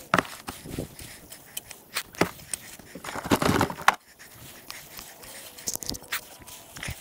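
A shovel scraping and wood-chip mulch crunching and rustling as the mulch is spread around the base of a young tree, in irregular scrapes, loudest about three seconds in.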